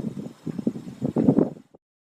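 Wind buffeting the microphone in uneven gusts, heaviest in the low end. It cuts off abruptly into dead silence near the end.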